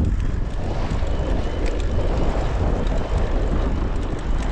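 Strong headwind buffeting the microphone on a moving recumbent e-trike: a loud, steady, low rumble.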